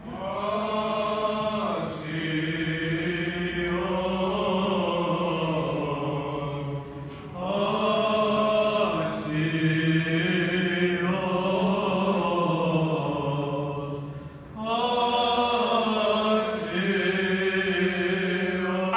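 Male voices singing Byzantine chant in unison: three long, drawn-out phrases, each broken off by a short pause, about 7 and 14.5 seconds in.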